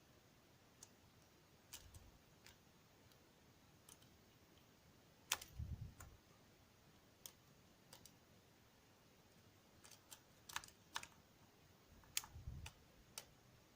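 Scattered small metallic clicks and taps of lock picks working the pins of a DOM ix10 KG dimple lock, with two short clusters of clicks over a dull low knock about five and twelve seconds in.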